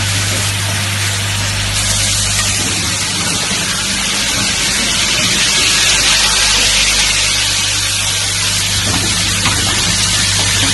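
An automatic IV infusion set component assembly machine running: a loud, steady hiss of machinery over a constant low hum, with no separate strokes standing out.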